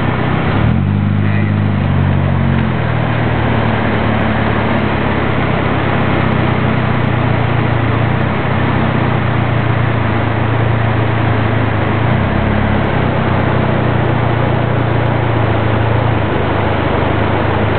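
Car engine running with a steady hum and even road and cabin noise, heard from inside the car.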